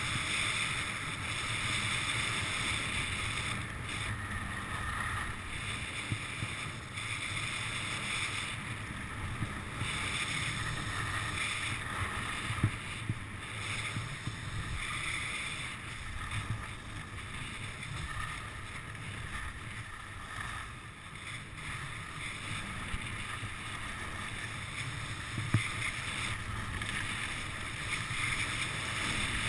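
Skis sliding and scraping over packed snow, mixed with wind rushing over the camera microphone. The noise swells and eases every few seconds, and there are two sharp clicks, one about halfway and one near the end.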